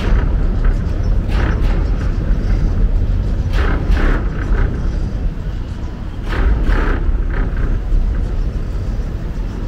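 Road traffic driving across a bridge's open steel grid deck: a steady low rumble, with the tyre hiss swelling and fading as each car passes, several times.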